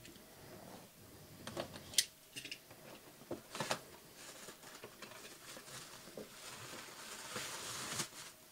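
Packaging being handled and opened by hand: scattered faint clicks, taps and rustling, with a sharper click about two seconds in and a longer rustle near the end.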